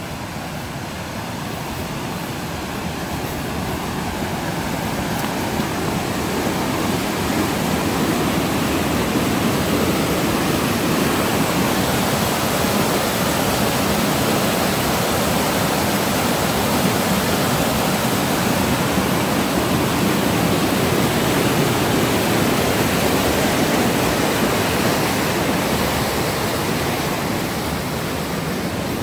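Mountain creek rushing over boulders and small cascades: a steady noise of white water that grows louder over the first several seconds and eases off a little near the end.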